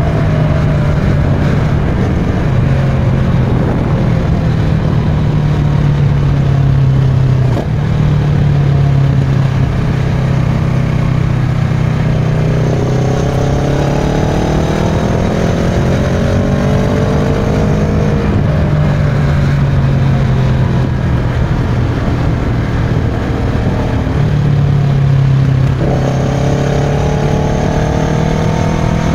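Kawasaki Versys 650's parallel-twin engine through a Giannelli aftermarket exhaust while riding, its pitch rising and falling with the throttle. The engine note jumps up suddenly about a quarter of the way in and again near the end, as the bike changes down a gear while slowing.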